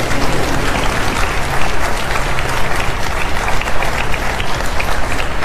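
Studio audience applauding: many hands clapping steadily.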